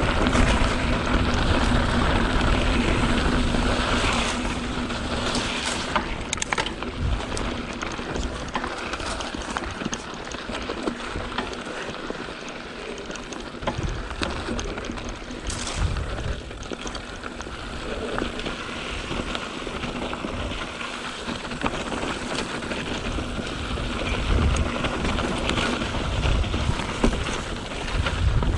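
2021 Canyon Spectral 7 mountain bike riding down a dirt trail: tyres rolling over dirt and rocks with scattered clicks and knocks, and wind rushing over the microphone. Louder in the first few seconds and again near the end, quieter in the middle.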